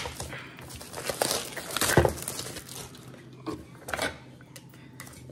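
Packaging crinkling and rustling as items are handled in a cardboard box, loudest about one and two seconds in, with a few short ticks later.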